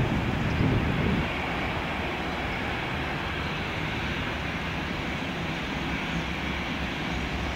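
Airbus A319 airliner's twin jet engines running at low taxi power as it taxis toward the listener: a steady jet noise, with a heavier low rumble in the first second.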